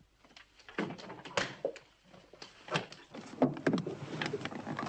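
Irregular clicks, knocks and rustling of a door being handled and someone moving about, ending with a car door opening as a person reaches into a car.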